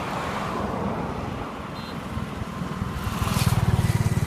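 Yamaha YZF-R3's parallel-twin engine running steadily through its stock exhaust, growing louder about three seconds in.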